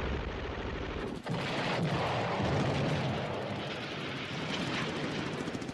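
Battle sound effects: continuous rattling gunfire mixed with booming explosions, with a brief lull about a second in.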